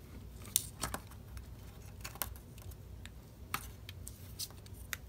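A handful of small, sharp clicks and taps at irregular times: plastic and metal parts of a Sony Aibo ERS-7 neck assembly being handled and pried apart with a plastic spudger.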